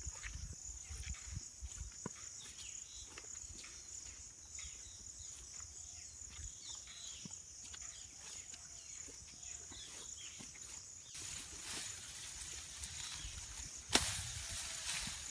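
Footsteps and grass brushing along a path through tall fodder grass under a steady high-pitched insect drone; from about 11 s the rustling grows louder. Near the end one sharp chop as a sickle cuts through grass stems.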